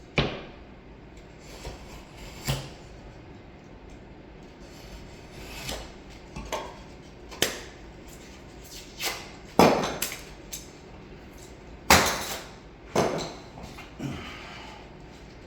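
Hand tools and drywall materials being handled: about a dozen irregular knocks and clacks, the loudest two near the middle and toward the end.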